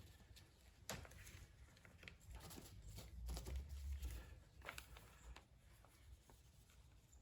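Faint scattered taps and rustles of small plastic pigment bags and resin mixing cups being handled, with a few light clicks.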